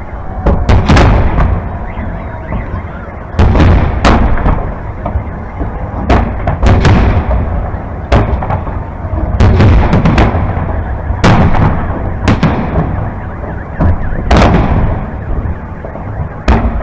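Large aerial firework shells bursting overhead in a salute. More than a dozen loud bangs come at irregular intervals, several close together, over a continuous low rumble.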